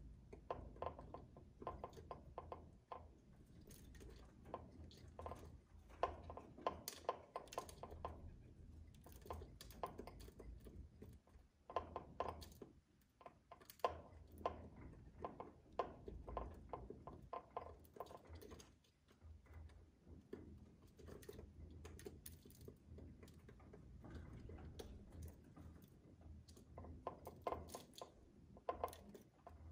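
Pigeons pecking seed from a bowl: rapid clusters of small beak taps and clicks, coming in bursts with short lulls between.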